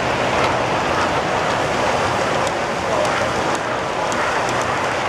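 Model passenger train rolling past on the layout's track: a steady rolling rumble with a few faint clicks.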